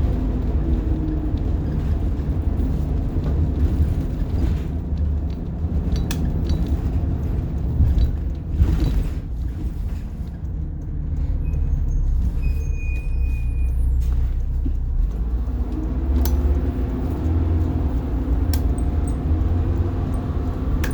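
Rear-mounted diesel engine of a 1990 Blue Bird All American school bus running under way, heard from inside the bus as a steady low rumble with road noise. It eases off briefly about ten seconds in, and its note rises again near the end.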